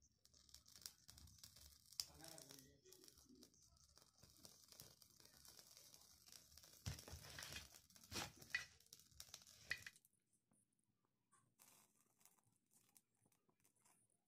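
Faint hiss with scattered crinkles and clicks from a lit lighter held to a thin plastic cup's rim as it catches fire. It drops off abruptly about ten seconds in, leaving near silence.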